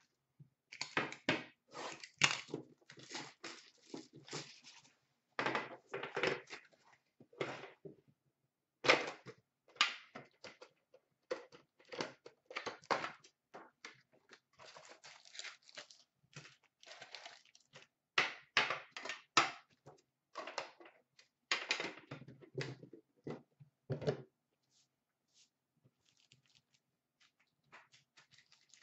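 Hockey trading cards and their boxes being handled: an irregular run of short rustles, slides and soft knocks as cards are sorted and set down, dropping to a few faint touches for the last few seconds.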